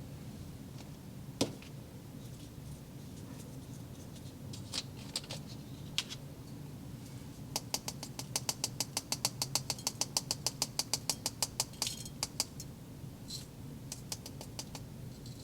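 Light clicks and taps from handling the pieces of a plastic toy slime-making kit: a few scattered ticks, then a fast, even run of about seven clicks a second lasting some four seconds.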